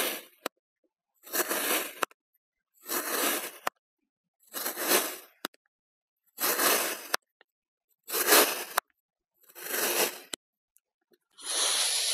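Kinetic sand being cut: seven separate crunchy slicing strokes, one about every second and a half, with silence between. Near the end a longer, hissier scraping sound begins.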